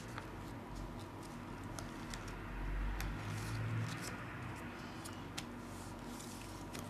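Sheet of craft paper being folded and creased by hand into a paper airplane's wings: scattered small crackles and rustles over a steady low background hum.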